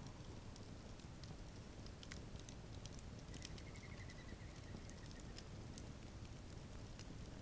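Wood fire crackling, with scattered sharp pops over a steady low rush of burning. About three seconds in, a faint high trill runs for a couple of seconds.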